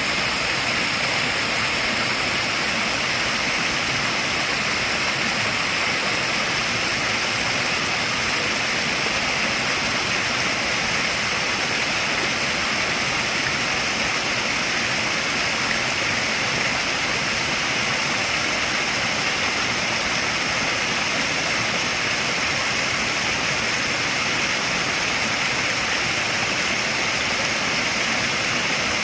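Water from small waterfalls pouring over rocks and splashing steadily into a koi pond.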